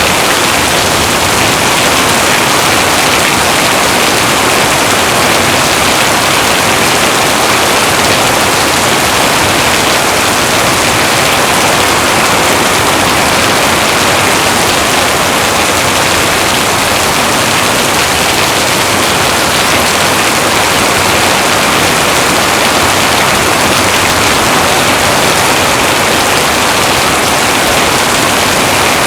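Heavy rain falling steadily: a dense, even hiss with no breaks or thunder claps.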